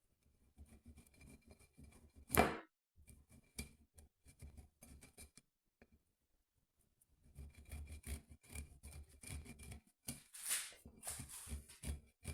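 Hard Parmesan cheese rubbed over a hand grater: irregular rasping strokes in two runs, with a pause in the middle and one louder knock about two and a half seconds in.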